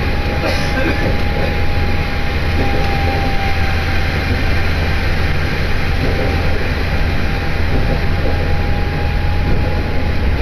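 Diesel railcar on the Nemuro Line heard from inside the cabin while running: a steady rumble of engine and wheels on rail, with a faint steady high whine over it.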